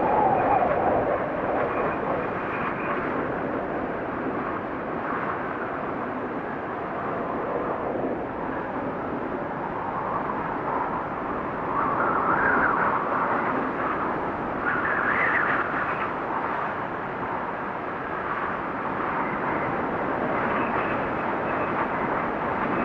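Wind blowing in a steady rush that swells in two gusts near the middle, with a faint high whistle at times.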